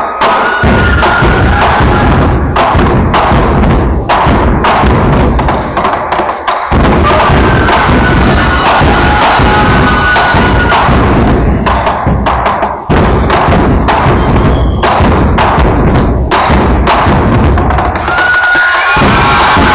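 Ensemble of large wooden barrel drums, taiko-style, beaten hard with sticks: loud, fast, dense pounding with short breaks about six and thirteen seconds in.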